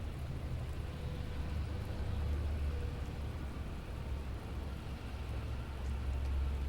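Steady rain falling, with a deep low rumble underneath that swells about two seconds in and again near the end.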